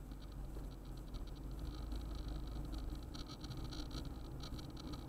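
Car driving on a highway, heard from inside the vehicle: a steady low rumble of road and engine noise, with a fast, irregular ticking patter over it that grows busier about three seconds in.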